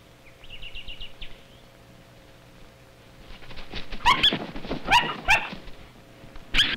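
A spur-winged plover's quick run of chattering high notes, then a string of loud, harsh, yelping calls about halfway through and again near the end, from the plover screeching at a dingo pup or from the pup itself.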